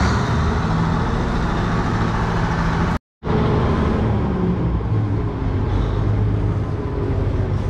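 Bizon combine harvester's SW 400 six-cylinder diesel engine running steadily as the combine drives slowly forward. The sound drops out for a moment about three seconds in.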